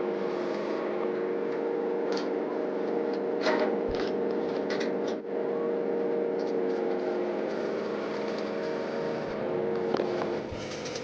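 A steady mechanical hum of a running motor or machine, with a few scattered clicks and knocks over it.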